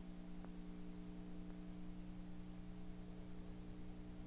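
Steady electrical hum with several tones, over an even tape hiss, with a sharp click at the very start and a faint tick about half a second later.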